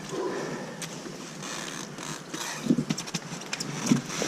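A motorcycle being kicked over without the engine catching: a few irregular knocks and rattles and no running engine note. The bike went fully under in a water crossing, and the rider believes it took in water.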